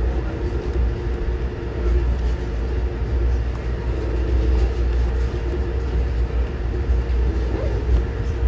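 Steady low rumble of an Amtrak Downeaster passenger train running along the rails, heard from inside the coach, with a steady hum over it as it passes close alongside a freight train of boxcars and tank cars.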